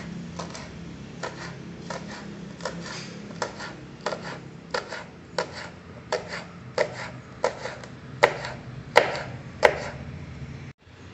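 Kitchen knife slicing green chillies on a plastic cutting board: short knocks of the blade on the board, about two a second, the three loudest coming near the end.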